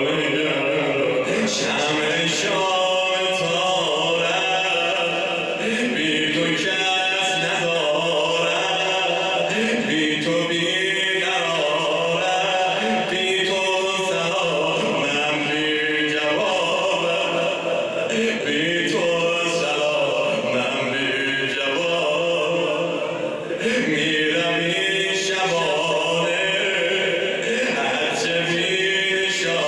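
A man's voice chanting Persian elegiac poetry (maddahi, a noha recitation) in long melodic sung phrases without a break.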